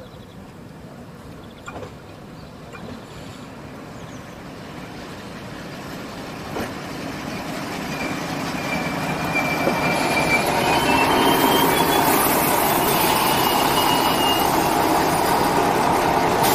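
Diesel railbus of the Uerdingen type approaching and pulling in alongside, its running noise growing steadily louder over the first ten seconds and then holding. A thin high squeal sounds as it slows, from about eight to fourteen seconds in.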